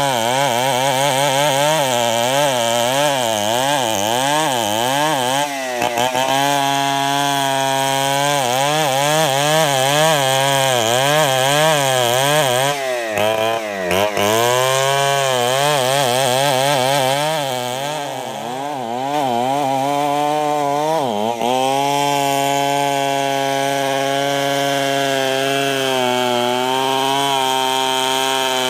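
Stihl 070 two-stroke chainsaw ripping lengthwise through a large log under heavy load. The engine pitch wavers up and down continuously as the saw is worked along the cut, and it dips briefly twice, near the middle and about three-quarters through.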